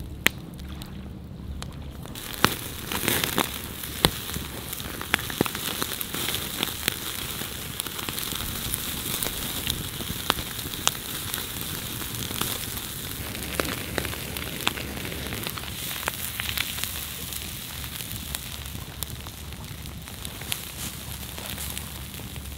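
Wood campfire crackling, with sharp irregular pops over a steady hiss; it gets louder about two seconds in.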